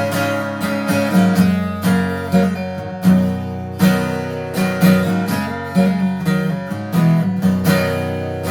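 Acoustic guitar strummed in a steady rhythm, an instrumental passage between sung verses.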